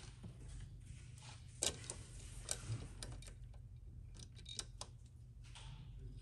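Scattered light clicks and taps of an air-intake tube and blue silicone coupler being handled and fitted by hand, the sharpest about a second and a half in, over a steady low hum.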